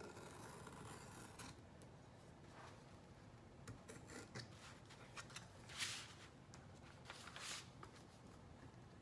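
Faint scratchy strokes of an X-Acto craft knife blade cutting excess scrapbook paper along the edge of a sign's frame, with a few louder strokes in the second half.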